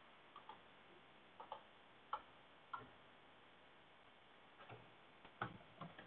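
Faint, slow keystrokes on a computer keyboard: about eight single clicks spread out with pauses between them.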